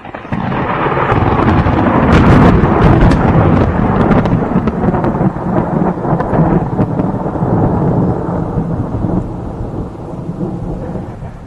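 A thunderclap: it breaks in suddenly, crackles sharply and peaks about two to three seconds in, then goes on as a long, deep rumble that slowly dies away.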